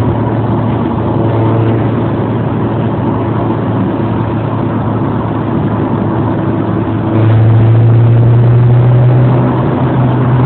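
Steady low mechanical hum of a running motor, stepping up louder about seven seconds in.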